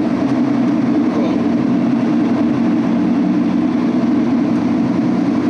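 Steady, loud drone of a semi truck driving at road speed, heard from inside the cab, with no change in pitch.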